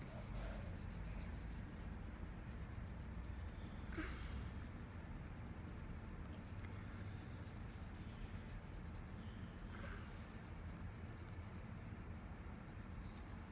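Coloured pencil shading lightly on paper: a faint, continuous scratching of the lead, over a steady low hum.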